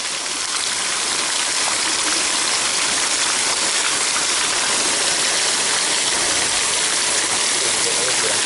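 Water rushing and splashing from a clear acrylic test box under full flow, jets spraying from its leaking seams and spilling over the top. A steady rush that builds up over the first second.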